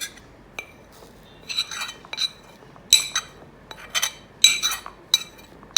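A spoon clinking and tapping against a bottle while powdered herbs are spooned into it: a series of sharp, ringing clinks at irregular intervals.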